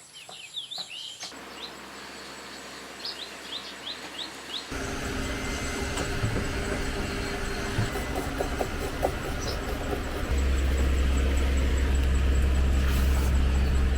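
A small bird chirping in short, quick calls during the first few seconds, then a steady low rumble that becomes louder about ten seconds in.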